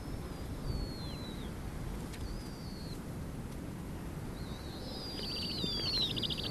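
Snowy owl owlets giving high, thin descending calls while being fed. There are a few single calls at first, then a rapid, chattering run of calls from about halfway through, over a low rumble of wind.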